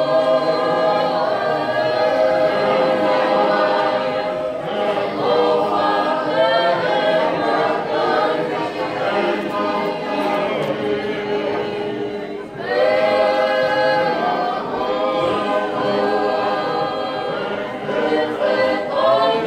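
Mixed church choir singing a hymn a cappella, several voices holding long chords together, with short breaks between phrases about four and twelve seconds in.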